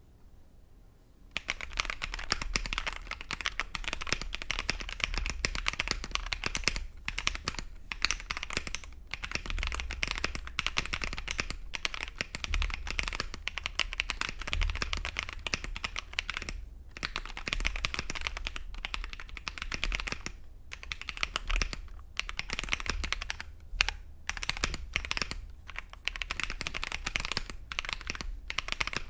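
Typing sound test of Akko CS Lavender Purple tactile mechanical switches mounted in a GMMK Pro keyboard with a polycarbonate plate and foam. Rapid, continuous key clacks with short pauses begin about a second and a half in, with a generally high-pitched character.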